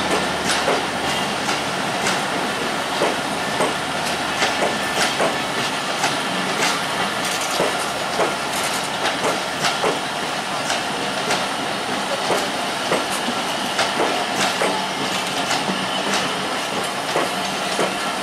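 Passenger coaches of an intercity train rolling slowly past close by: a steady rolling rumble and hiss from the wheels on the rails, broken by frequent sharp clacks as the wheels cross rail joints.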